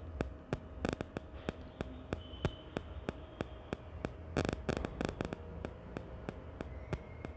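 Irregular sharp clicks and taps, a few in quick clusters, over a low steady hum, as wires and parts of a CRT TV kit board are handled.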